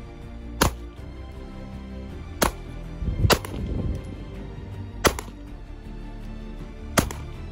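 Custom Glock 19 9mm pistol with a muzzle brake firing single shots, about five of them, one to two seconds apart. Quiet background music plays underneath.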